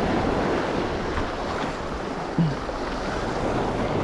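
Sea surf washing and breaking over the boulders of a rocky shore, a steady rush of water. About two and a half seconds in there is a single short sound that falls in pitch.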